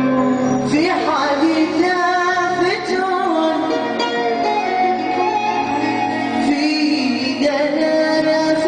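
Live Saudi shakshaka-style party music: oud and Korg keyboard playing together, with singing.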